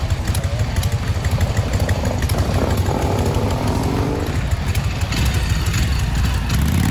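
Harley-Davidson chopper V-twin engines running as the bikes ride off, with a rise in revs about two and a half seconds in.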